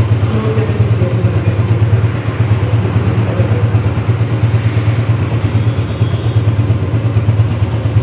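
Honda CG 125 motorcycle's single-cylinder four-stroke engine running steadily at an even speed.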